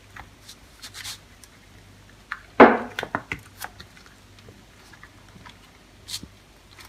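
Handling noise from a soft silicone mould being worked off chocolate eggs on greaseproof paper: scattered light rustles and clicks, with one louder rustle about two and a half seconds in.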